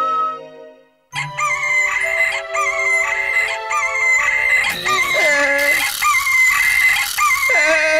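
A cartoon rooster crowing a wake-up call at morning, its calls wavering and sliding down in pitch, over music. It starts after a brief fade to silence about a second in.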